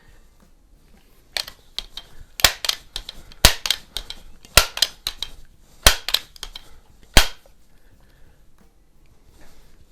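Crosman 147 multi-pump air rifle being worked and fired: a run of sharp mechanical clacks and clicks, the strongest about a second apart, the last one near the end the loudest.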